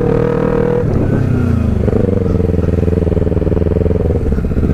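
Motorcycle engine running as the bike rides along, its note changing briefly about a second in and then holding steady.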